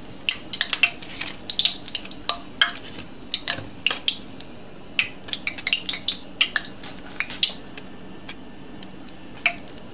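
Slotted spoon clicking and scraping against the pan as besan fritters are stirred, turned and lifted, with many quick clicks that thin out after about seven seconds. Under it, the fritters sizzle steadily in hot oil.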